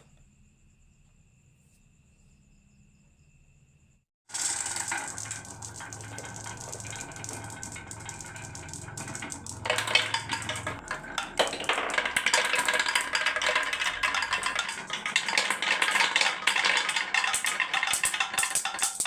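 Near silence for about four seconds, then many marbles suddenly rolling and clattering down a wooden HABA marble run, a dense rapid clicking that grows louder about ten seconds in.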